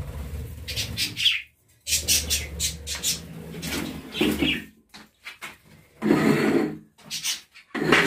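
Budgerigars chirping and chattering in short, irregular bursts, with low rumbling from the phone being handled.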